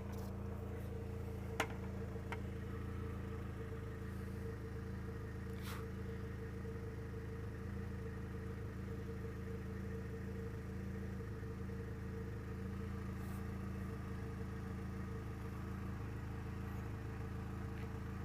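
Truck engine idling steadily with its exhaust running into a bucket, a low even hum; the truck has a check engine light on and isn't running quite properly. A single sharp click about a second and a half in.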